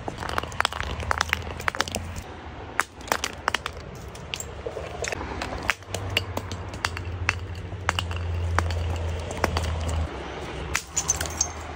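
A glass sauce bottle tumbling down concrete steps, knocking and clinking against the step edges in a quick, irregular run of sharp hits, with a low steady rumble underneath.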